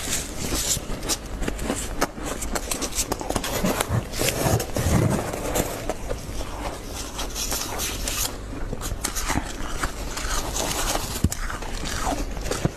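Freezer frost being bitten and crunched, and scraped and scooped with a plastic scoop in a chest freezer: a dense run of crisp, crackling crunches and scrapes.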